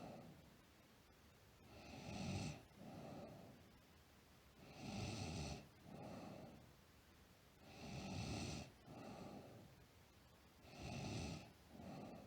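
A sleeping girl snoring steadily, about once every three seconds. Each breath is a louder snore followed by a softer, breathier sound.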